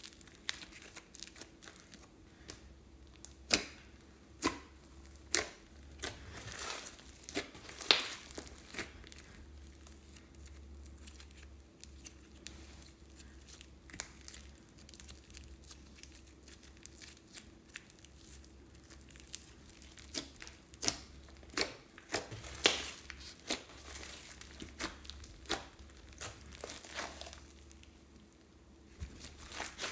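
Hands squishing, stretching and pulling apart thick slime studded with foam beads, giving irregular crackles, pops and sticky tearing sounds, busier in two stretches with a quieter spell between.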